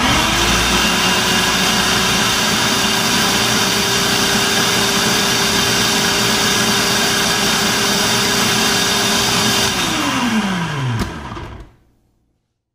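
Countertop food processor motor switched on high, blending a thick paste: it starts suddenly, quickly comes up to a steady whine, and runs for about ten seconds. When it is switched off near the end, the motor winds down with a falling pitch.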